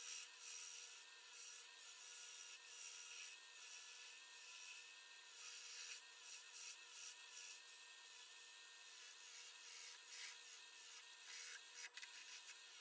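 Wood lathe spinning a wooden handle blank while a turning chisel cuts it: a faint, steady hissing scrape of the cut as shavings peel off.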